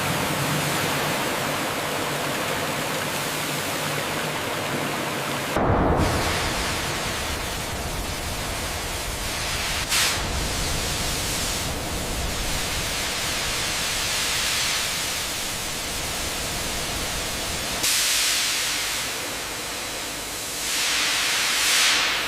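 Steady rushing hiss of factory processing machinery, changing in tone about six seconds in, with short swells around ten and eighteen seconds and a louder swell near the end.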